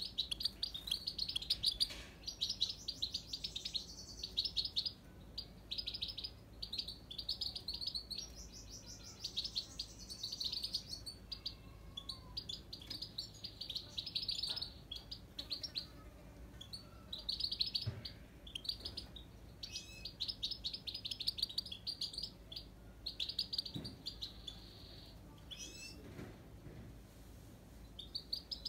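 Himalayan (grey-crowned) goldfinch singing: long runs of fast twittering notes in phrases a few seconds long, broken by brief pauses.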